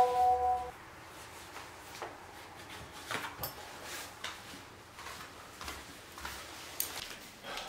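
Phone message alert tone, a steady chord that cuts off less than a second in. After it come faint knocks, clicks and rustles of someone moving about in a small hallway.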